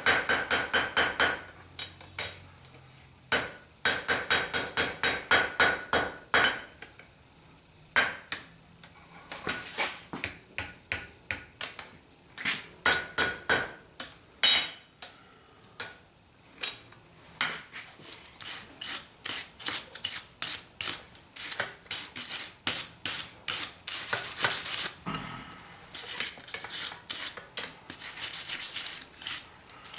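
Hammer blows ringing on a small forged steel hook and anvil in quick runs, then, in the second half, rapid rhythmic scraping strokes on the metal, typical of brushing or filing the forged hook.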